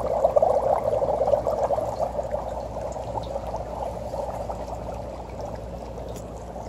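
Dry ice bubbling hard in a metal bowl of water: a continuous rapid fizzing gurgle of carbon dioxide gas escaping as the ice sublimates, easing a little after about two seconds.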